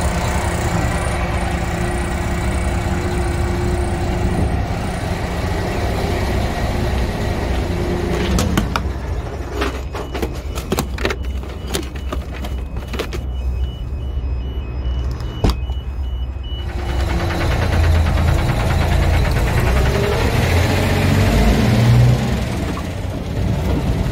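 Road train's diesel engine idling with a steady low rumble, with a run of sharp metal clicks and knocks in the middle as the signs are stowed in a toolbox locker; the engine grows louder near the end.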